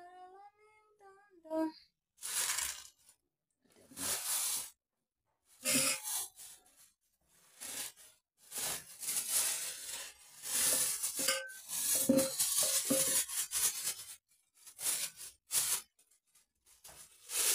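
Hands rubbing and scrunching lemon-juice-soaked hair, in irregular bursts of rustling noise. A short hummed note at the very start.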